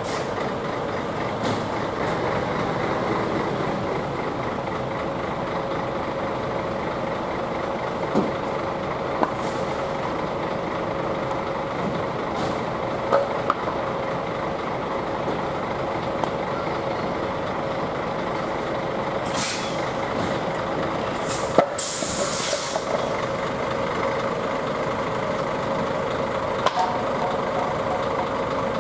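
Heavy trucks' diesel engines running steadily at idle. Short air-brake hisses come twice, about two-thirds of the way through.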